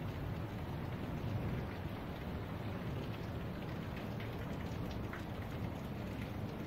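Steady rain falling, with many scattered drop hits and a low rumble underneath.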